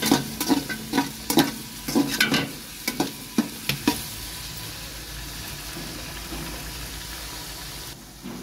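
Sliced onions frying in oil in a metal pot with a steady sizzle, while a spatula scrapes and knocks against the pot about two or three times a second as they are stirred to brown. The stirring stops about halfway through, leaving the sizzle alone.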